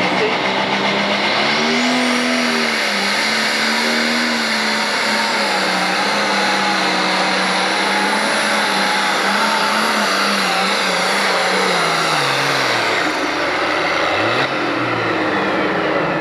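International 1066 pro stock pulling tractor's turbocharged diesel engine running flat out under load as it drags the weight-transfer sled. The pitch wavers slightly, with a high whine over it. About thirteen seconds in, the pitch drops steeply as the pull ends.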